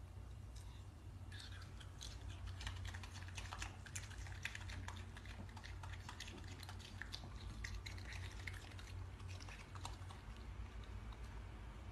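A raccoon chewing soft fruit with its mouth open: a run of quick wet clicks and smacks starting about a second in, over a low steady hum.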